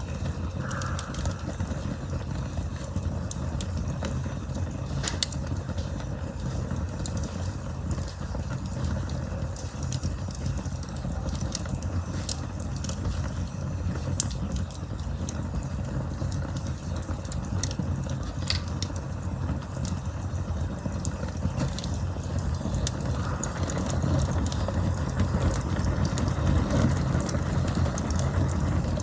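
Campfire burning: a steady low rumble of flames with frequent crackles and pops from the burning wood, two louder pops about five and fourteen seconds in.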